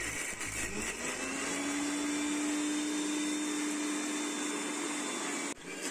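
Electric mixer grinder running, grinding a wet spice paste in its steel jar: the motor rises in pitch as it comes up to speed, runs steadily, then cuts off suddenly near the end.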